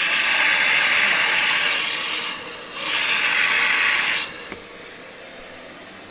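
An Electrolux Aqualux EW1006F washing machine starting to fill: water rushing in through the open inlet valve as a loud hiss. It comes in two bursts, the second cutting off about four seconds in.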